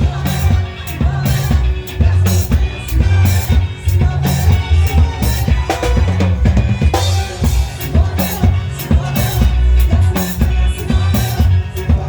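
A live band playing, with the drum kit to the fore: a heavy, pounding bass drum and snare and rim hits over sustained instruments.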